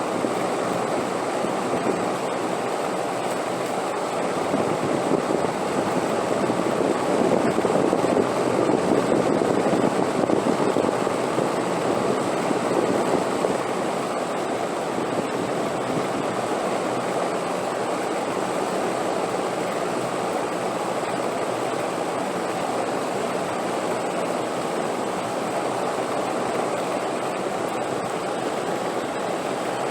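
Steady rushing wind that swells louder for several seconds in the first half and then settles to an even level.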